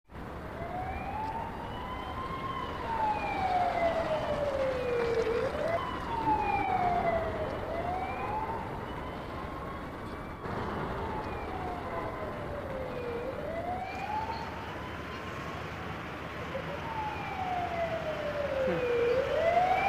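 A siren wailing, its pitch sweeping slowly up and down, each rise or fall lasting a few seconds.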